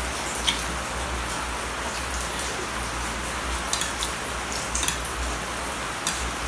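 Steady rain falling, with a few short clicks from eating macaroni with a metal fork from a glass plate.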